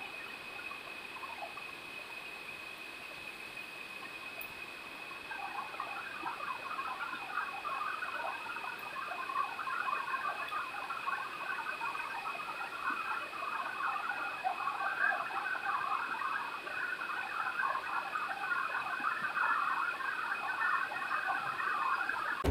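Heavy rain falling under a steady high-pitched tone; from about five seconds in, a dense chatter of short high sounds joins and grows louder.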